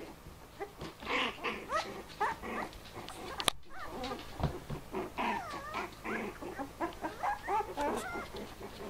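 Four-week-old Bichon Frise puppies squeaking and whining in quick high, wavering little cries as they play-fight, in two busy stretches. A single sharp click about three and a half seconds in.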